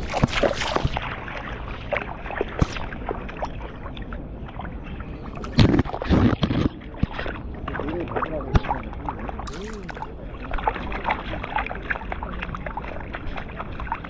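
Water splashing and gurgling as a husky wades through a shallow stream, picked up by a camera on its collar just above the water, with a burst of heavy splashes about six seconds in.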